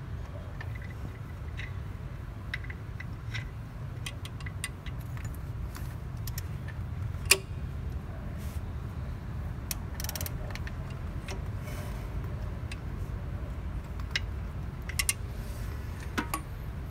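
Scattered metallic clicks and clinks from hand work at the timing end of a BMW M62 V8, over a steady low rumble, with one sharper click about halfway through.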